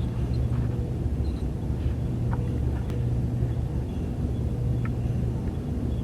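Steady low electronic hum of a Star Trek starship ambience effect, with a few faint, short high beeps scattered through it.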